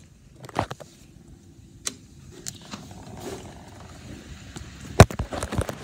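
Several sharp knocks and thumps over a low steady rumble, the loudest knock about five seconds in, followed by a quick cluster of smaller ones.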